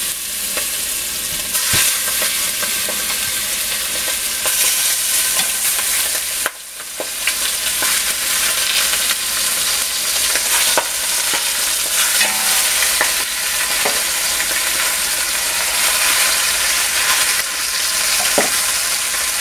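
Raw seasoned chicken pieces sizzling in hot canola oil in a stainless steel pot, a steady frying hiss, with scattered light clicks as pieces are set down.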